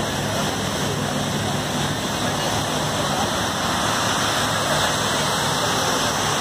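Steady rush of the waterfalls pouring down the walls of a 9/11 Memorial reflecting pool.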